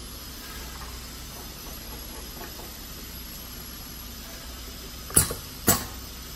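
Pneumatic lipstick filling machine cycling: two sharp mechanical clacks about half a second apart near the end as its air cylinder drives the filling piston, over a steady hiss.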